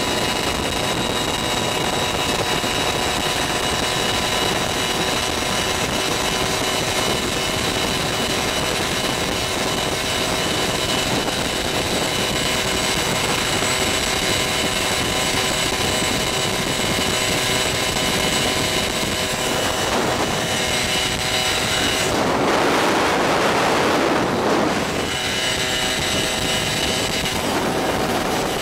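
Small two-stroke moped engine running at a steady cruising speed, its pitch held level, with wind and road noise. A louder rush of noise covers it for a few seconds near the end.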